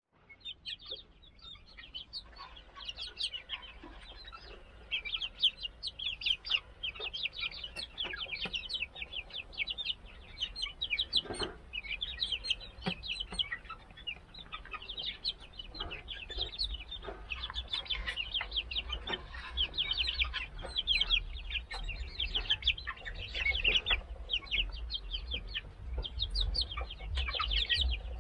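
Young mixed-breed chickens (Australorp, Polish, Rhode Island Red) peeping throughout in rapid, high-pitched chirps, many birds at once, with an occasional soft knock.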